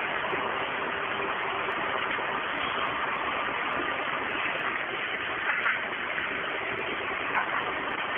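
Steady hiss of an old, narrow-band audio recording during a pause, with no speech.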